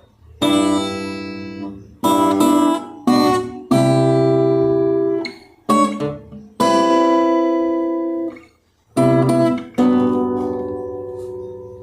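Acoustic guitar strumming slow chords one at a time, each left to ring and die away before the next.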